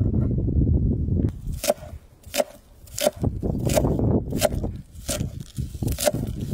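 Kitchen knife chopping green pepper on a wooden cutting board: about seven sharp strokes, steadily about one every 0.7 seconds. They follow a low rumbling noise in the first second or so.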